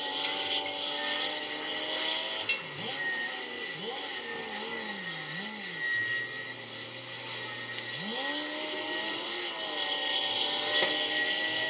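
Wheel loader's heavy diesel engine working, its pitch dropping and rising again and again. Midway it settles to a steady low idle for about two seconds, then revs up again. A steady high whine runs underneath, and two sharp metallic knocks come in the first few seconds.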